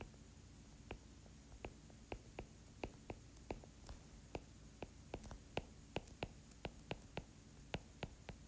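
Faint, irregular clicks of a stylus tip tapping on a tablet screen during handwriting, a few taps a second, closer together from about two seconds in.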